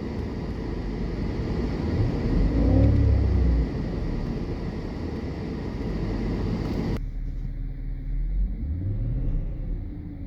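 BMW M62TUB44 V8 engine running, blipped up and back down about two seconds in. About seven seconds in the sound changes abruptly, and the engine is revved up and down again.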